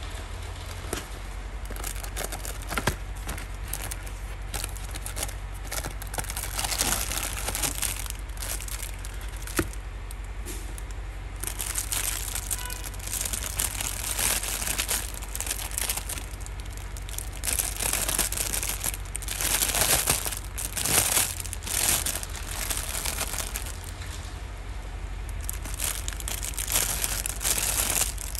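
Clear plastic bag crinkling and rustling in irregular bursts as a pair of plastic glasses is pulled out and unwrapped, with a few sharp clicks of the cardboard box being handled near the start.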